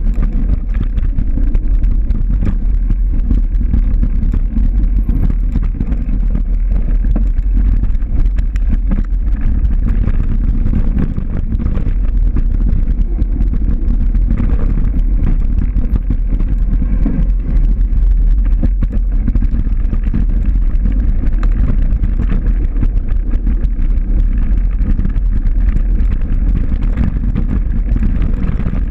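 Loud, steady wind rumble on a moving microphone, with many small knocks and rattles through it.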